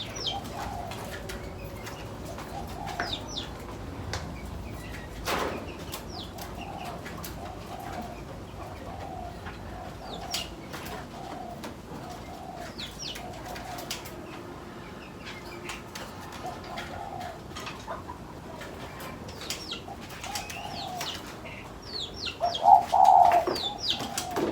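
Doves cooing in a long run of short, low, evenly repeated notes, with small aviary birds giving sparse short high chirps and scattered clicks. A louder coo comes near the end.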